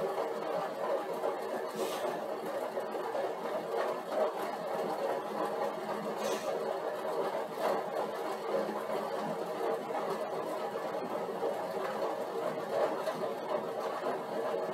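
Stationary exercise bike running steadily under constant pedaling at a 160-watt load: an even mechanical whir with no break.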